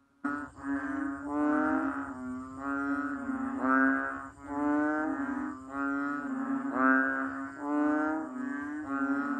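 Banded bullfrog (Kaloula pulchra) calling: a series of low, droning, mooing calls that swell and fade about once a second over a steady low tone. The calls start a moment in, after a brief silence.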